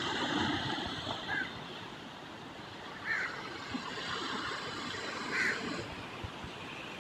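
Steady rushing water noise, with short high chirps about one and a half, three and five and a half seconds in.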